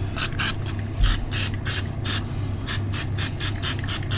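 Nitro Blast aerosol cleaner sprayed over a muddy nitro RC buggy in quick short bursts, about three or four hisses a second, over a steady low hum.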